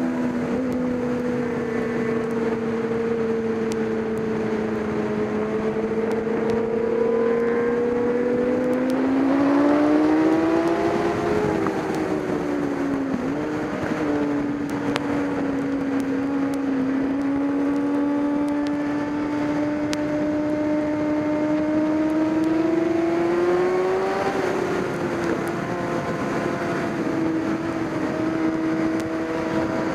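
Racing motorcycle engine running at sustained high revs, its pitch sinking, then rising twice as the throttle and speed change, over a steady rush of wind noise.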